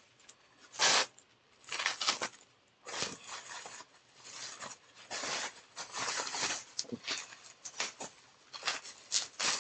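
Pink plastic bubble wrap rustling and crinkling in irregular bursts as it is handled and unwrapped by hand, the loudest crackle about a second in.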